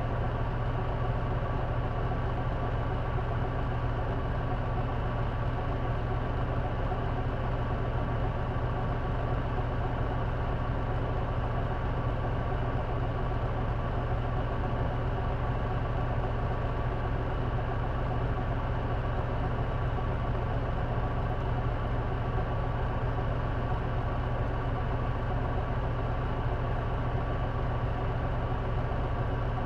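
J-Bus city bus diesel engine heard from inside the cabin, idling steadily with an unchanging low hum and a thin steady higher whine on top. This bus makes an unexplained noise that the uploader places around the exhaust or turbo.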